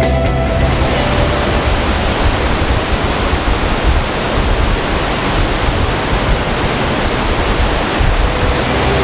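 Loud, steady rush of the Tamina, a mountain river, churning through a narrow rock gorge.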